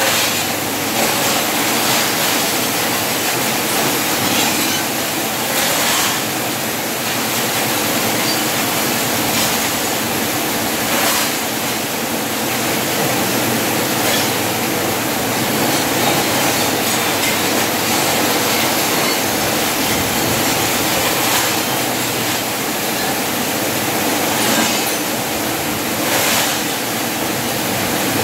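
Large steel gate being moved slowly, its metal running gear grinding and squealing in a steady rough rumble with a few louder scrapes.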